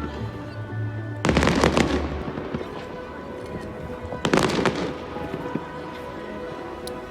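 Fireworks bursting and crackling in two volleys, about a second in and again about four seconds in, with music playing underneath.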